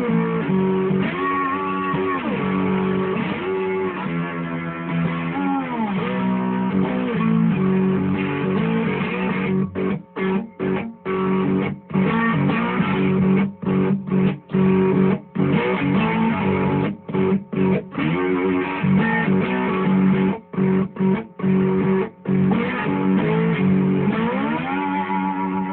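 T52 cigar box guitar being played, notes gliding up and down in pitch over a steady low note. About ten seconds in the playing turns choppy, with the notes stopped short again and again for brief moments, then flows on again near the end.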